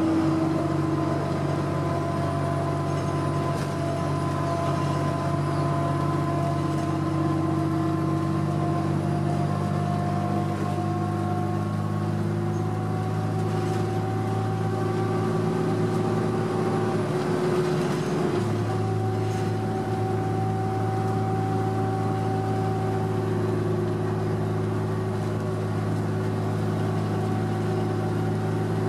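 Cummins ISL inline-six diesel engine of an Orion VII transit bus running steadily at highway speed, heard from inside the passenger cabin together with road noise. The engine note changes briefly about two-thirds of the way through, then settles back to a steady drone.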